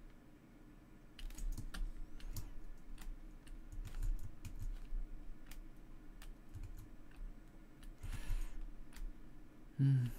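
Irregular clicks and taps of a computer keyboard and mouse, with a brief rustle about eight seconds in.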